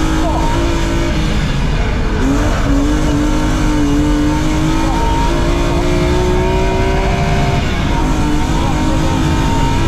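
BMW E36 rally car's engine heard from inside the cabin, pulling hard on a stage with its pitch climbing slowly, under a heavy rumble of road and tyre noise. The revs dip and pick up again about a second in, and drop once more near the end.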